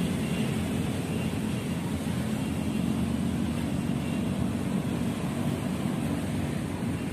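Road traffic: a steady low rumble of passing vehicles.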